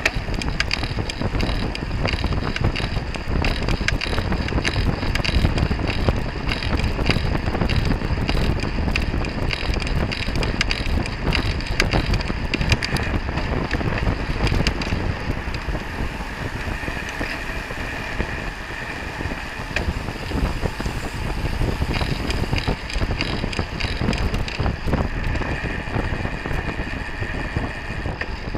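A racing road bike ridden at speed, heard through the camera's microphone. Wind rushes over the microphone, the tyres hum on asphalt, and the bike clicks and rattles often.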